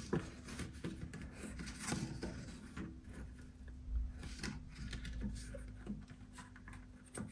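Stiff paper test card for a punch-card valve tester being slid and pressed into place by hand: soft paper scrapes with small taps and clicks, and a low thump about four seconds in. A steady low hum runs underneath.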